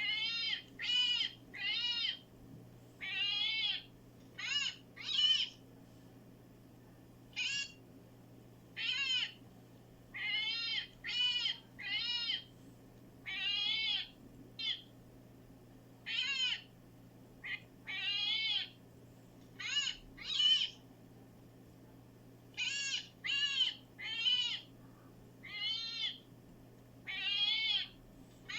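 A small animal repeatedly giving short, high-pitched, arching cries, singly or in quick runs of two or three, with brief pauses between.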